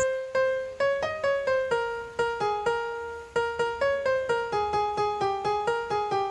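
Instrumental background music: a light melody of short pitched notes, about four a second, each dying away quickly.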